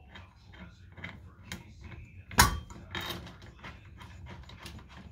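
Small metal clicks and rattles of bolts and hardware being handled at a steel tool chest, with one sharp clank about two and a half seconds in and a lighter knock just after.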